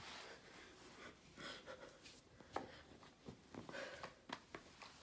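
Near silence with faint, scattered rustles and clicks.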